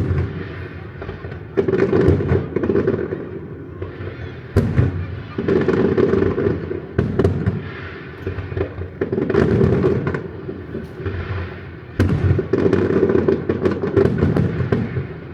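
Aerial fireworks bursting one after another: sharp booms, the loudest near the start and at about 1.5, 4.5 and 12 seconds in, with crackling and rumbling between them.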